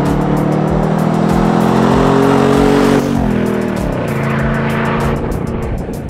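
Nissan Titan's 5.6-litre V8 through a Z1 Off-Road cat-back exhaust, accelerating as the truck drives past. The pitch climbs, drops sharply about three seconds in as it goes by, then holds lower as the truck pulls away.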